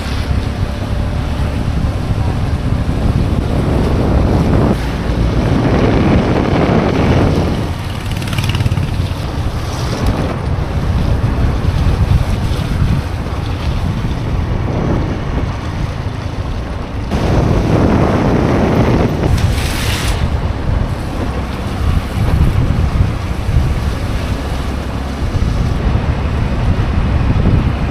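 Strong wind buffeting the microphone: a loud rushing noise with a heavy low rumble that swells and eases every few seconds.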